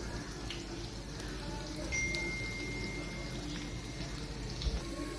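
Mustard oil with crushed garlic and ajwain softly sizzling in a small pan, with a few light clicks. A thin, steady high tone sounds for about a second and a half near the middle, over faint voices in the background.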